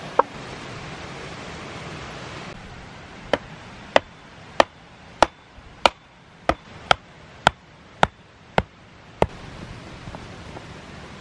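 A wooden stake being driven into the ground by hand, its top struck about eleven times at a steady pace of a little under two blows a second. A single clink sounds just before the strikes begin.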